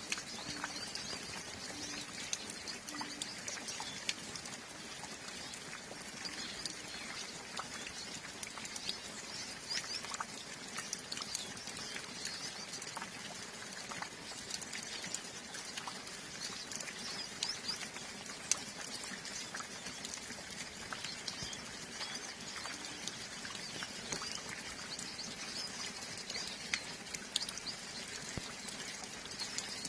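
Steady light rain pattering with scattered drips, under a flock of hooded siskins chirping and twittering in many short high calls.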